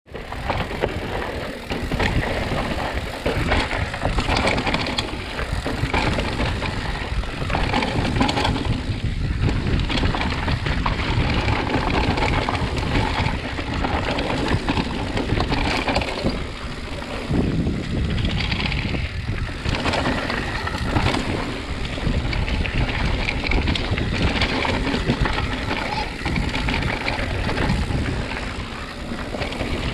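Mountain bike riding fast down a loose dirt and gravel trail: wind noise on the microphone over the tyres rolling on gravel, with frequent knocks and rattles from the bike over bumps.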